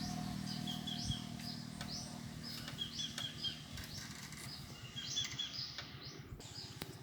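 Birds chirping: short rising calls and quick high notes repeated over and over.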